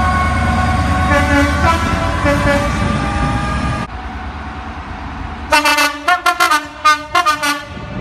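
Diesel locomotive horns. First a passing freight diesel sounds its two-tone horn over the heavy rumble of its engine, the pitch switching back and forth until it cuts off just under four seconds in. Then a Class 66 diesel locomotive gives a quick series of about seven short horn toots.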